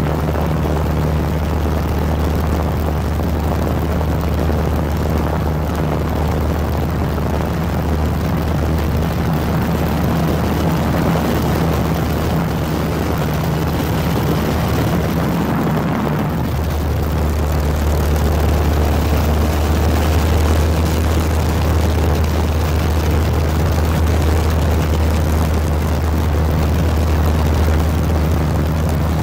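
Steady engine drone with a strong low hum, heard from aboard the craft carrying the camera. About sixteen seconds in the hum dips briefly, then comes back a little louder.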